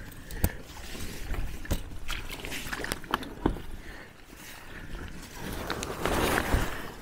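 Packraft being handled: scattered knocks and scrapes on the inflatable hull, with a longer, louder rustle near the end.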